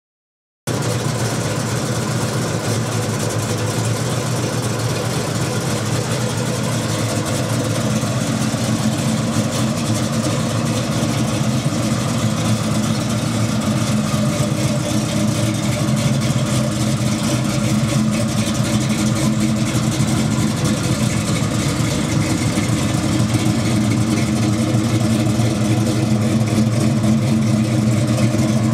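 A 468 cubic-inch big-block Chevrolet V8 in a 1970 Chevelle SS idling steadily. It starts about half a second in and grows slightly louder toward the end.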